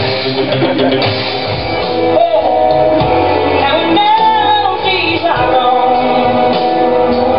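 A song playing: singing over a steady instrumental backing, with the voice gliding between held notes.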